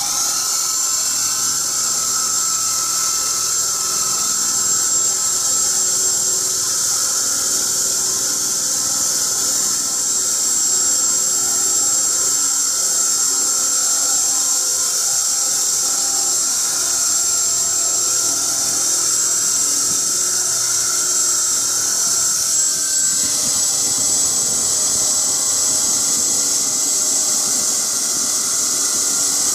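Reciprocating saw running steadily, cutting through a vehicle's exhaust pipe for a muffler delete: a continuous high-pitched motor whine that shifts slightly in pitch about three-quarters of the way through.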